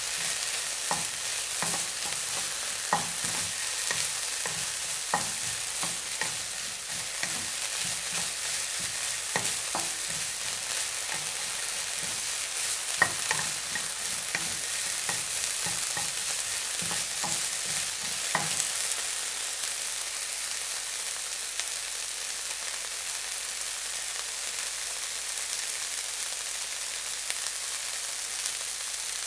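Food frying, with a steady sizzle and frequent crackling pops. The pops stop about two-thirds of the way through, leaving an even sizzle.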